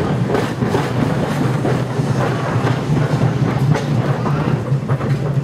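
Vintage open-top tram running along street track: a steady low hum with the rumble and irregular clatter of steel wheels on the rails.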